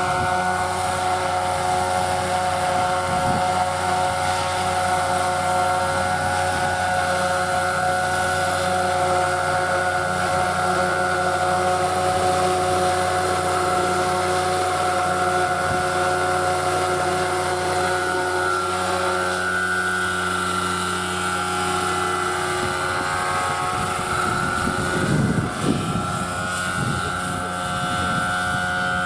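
Radio-controlled scale model helicopter running, with a steady whine from its motor and rotors. The pitch shifts about two-thirds of the way in, and there is a brief low rumble near the end.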